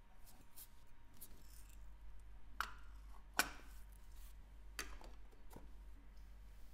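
Light clicks and taps of watchmaking tools against small metal parts of a watch movement. Three sharper clicks come near the middle, the second the loudest, with a few fainter taps around them.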